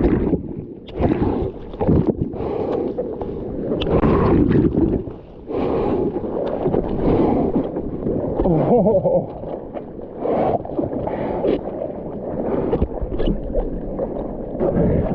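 Seawater splashing and sloshing around a waterproof POV camera in the surf, in irregular surges with gurgling bubbles as it dips into the water, and wind on the microphone.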